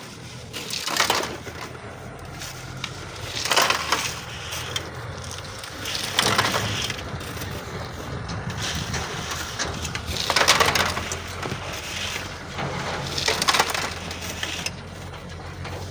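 Sand and gravel being shovelled by hand: a gritty scrape-and-toss every two to three seconds, over a steady low engine hum.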